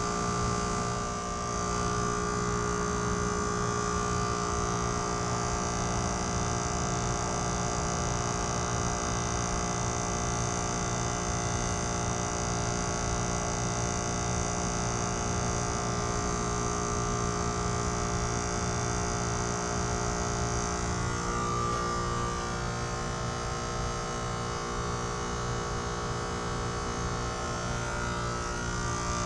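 2018 Trane XR14 heat pump running through its defrost cycle: a steady hum made of several fixed tones from the compressor, with the tones wavering and shifting slightly about two-thirds of the way through.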